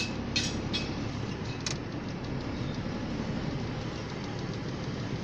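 Steady engine and road rumble heard from inside a moving Chevrolet car. A sharp click right at the start is the loudest sound, and a few lighter clicks follow over the next two seconds.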